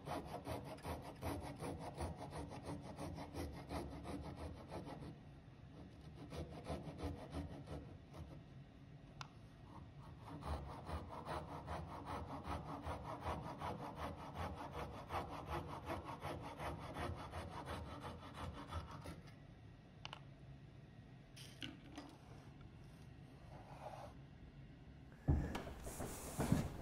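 Fine-toothed handsaw cutting through a wooden dowel to make short dowel pins, in quick back-and-forth strokes, in two spells with a pause of a few seconds between. A single knock comes near the end.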